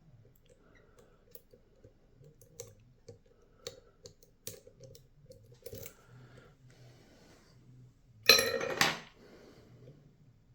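Lock picks working the pins of a DORMA 6-pin euro cylinder: small scattered metallic clicks and ticks, with a louder clatter lasting under a second about eight seconds in.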